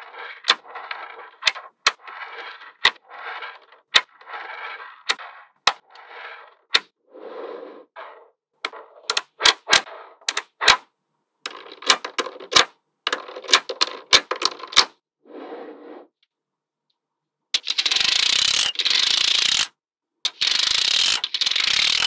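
Small magnetic balls snapping together with sharp clicks, one after another at an uneven pace and quickest about ten seconds in, between short rattling bursts of balls shifting against each other. About seventeen seconds in, a louder rattling noise lasts about two seconds, and a similar one starts near the end.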